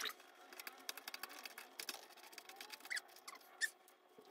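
Faint, quick clicking and light metal ticking from screws and a screwdriver being handled at a metal shelf frame, dense at first and thinning out after about three seconds, with a couple of louder clicks.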